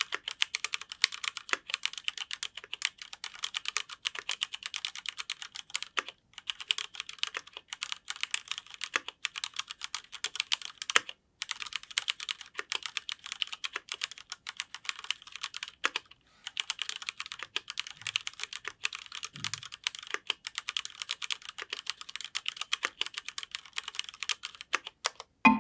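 Typing sound test of a Cherry MX Board 3.0S RGB mechanical keyboard: its keys clack in a fast, continuous stream, with a few brief pauses in the typing.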